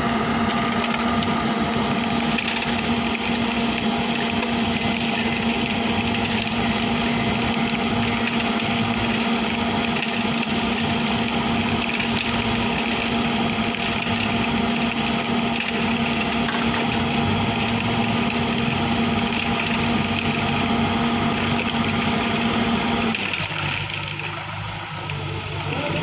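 Diesel engine of an Ajax Argo 4300 self-loading concrete mixer running steadily with a constant hum. Near the end the hum drops away and the engine note eases off.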